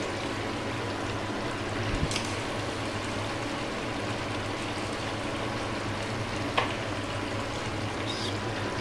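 Chicken and vegetable sauce simmering in a non-stick wok, a steady bubbling hiss, with two short knocks about two seconds and six and a half seconds in.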